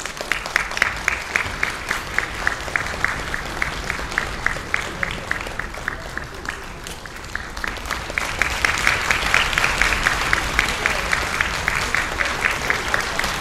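Audience applause: many hands clapping together in a steady rhythm of about four claps a second, growing louder about eight seconds in.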